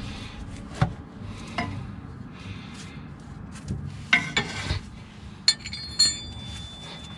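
Hand tools clinking and scraping against metal on a car's underside while a socket is worked up by the engine's starter. There are several sharp clinks, the loudest between about four and six seconds in, and two of them ring on briefly.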